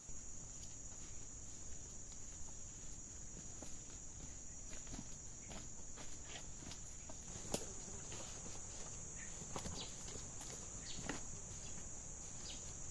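Steady high-pitched chorus of insects such as crickets, with scattered light clicks and knocks and one sharper click a little past the middle.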